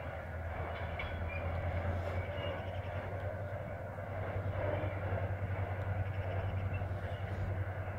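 Freight train hauled by a series 644 diesel-electric locomotive, moving away down the line, heard as a steady low rumble and drone.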